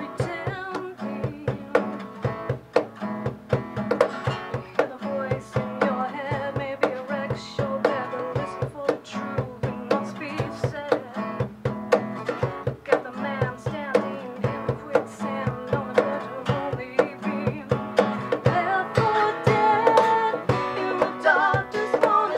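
Live acoustic folk-rock: an acoustic guitar strummed in a driving rhythm, with a cajón slapped by hand keeping a steady beat. A woman sings over it, most strongly in the last few seconds.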